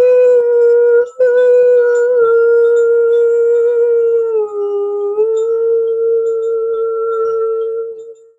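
A woman's voice toning in long, held wordless notes. There is a short break for breath about a second in, a dip to a lower note around the middle, a return to the first pitch, and the sound fades out near the end.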